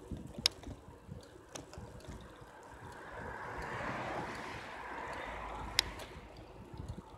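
Wind and road rumble on a bicycle-mounted camera, with a few sharp rattles as the bike goes over bumps. About halfway through, a passing car's tyre noise swells and then fades.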